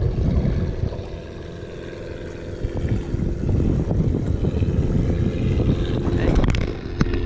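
Wind buffeting the microphone in a low rumble, over a faint steady engine hum, with a few sharp clicks near the end.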